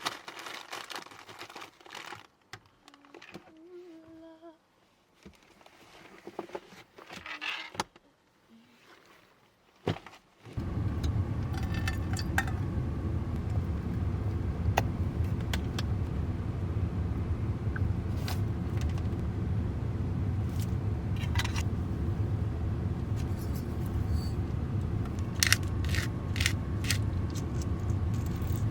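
Keys jangling and light handling clicks, then about ten seconds in a van's engine starts and runs with a steady low rumble inside the cabin, a few small clicks over it.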